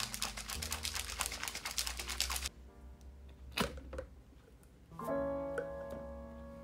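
A lidded plastic jug of milk and cocoa powder shaken hard by hand: a fast clicking rattle that stops about two and a half seconds in. About a second later comes a single click as the lid is pulled off.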